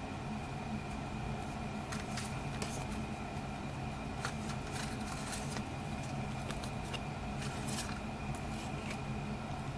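Photo prints being handled and slid off a stack, with soft paper rustles and clicks in a few clusters, over a steady low hum.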